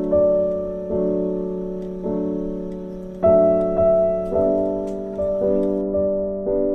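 Background piano music: slow, soft chords struck about once a second, each ringing and fading before the next.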